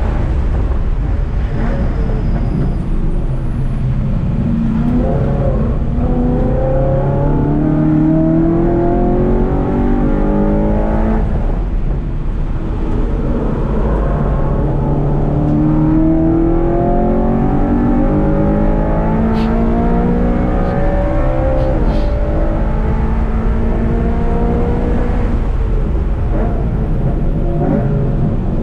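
BMW engine driven hard on track, heard from inside the cabin: its pitch climbs repeatedly and drops back as the car accelerates and lifts, over a steady low road and tyre rumble, with a few sharp clicks about two-thirds of the way through.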